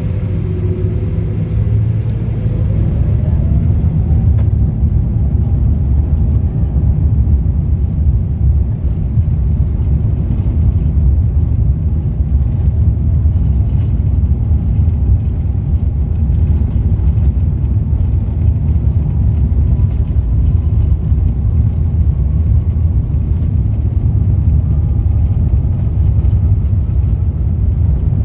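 Cabin noise aboard an Airbus A350-900 taxiing: a steady low rumble from the Rolls-Royce Trent XWB engines and rolling wheels, heard inside the cabin. A faint engine whine rises in pitch about two to four seconds in.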